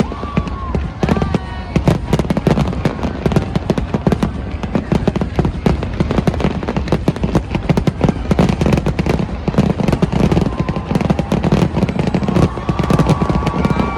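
Fireworks display: a dense, continuous barrage of rapid bangs and crackles, many per second, with no let-up.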